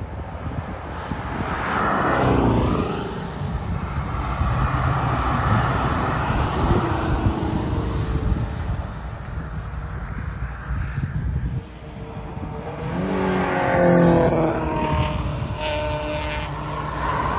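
Several cars passing one after another at speed on a race track. Each engine note falls in pitch as it goes by, with the loudest pass about two seconds in and another about thirteen to fourteen seconds in.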